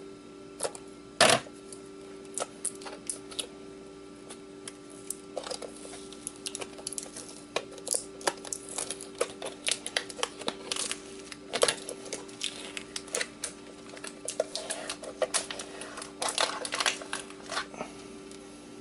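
Irregular small metallic clicks and taps of a screwdriver working screws out of a hard drive. One sharper click comes about a second in, and the clicks come more thickly later. A faint steady hum runs underneath.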